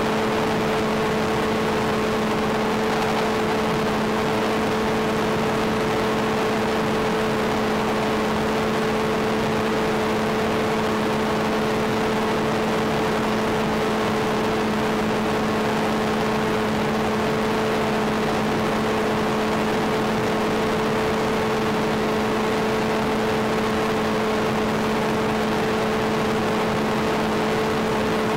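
Sky Surfer glider's HiMax 2000kv brushless pusher motor and APC 5.5x4.5 propeller running at steady part-throttle cruise: an even, unchanging drone with a steady hum over hiss.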